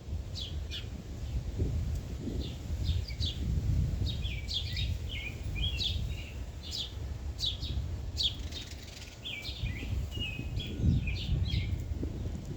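Small birds chirping, with many short, quick calls overlapping throughout, over a steady low rumble.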